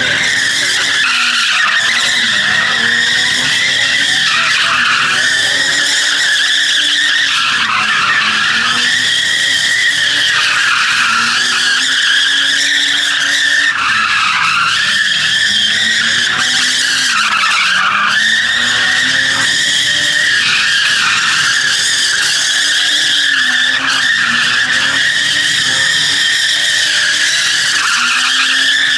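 A vehicle doing continuous donuts, its tires screeching without a break. The engine is held at high revs, its pitch rising and dipping every few seconds as the vehicle swings around.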